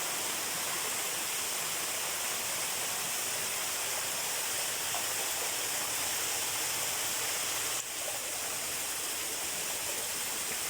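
Spring water flowing strongly out of holes in the ground: a steady rushing splash, with a brief drop about eight seconds in.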